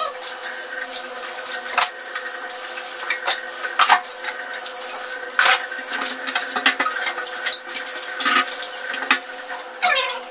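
Kitchen tap running water steadily into a sink while dishes are washed, with a dozen or so sharp clinks and knocks of crockery scattered through it.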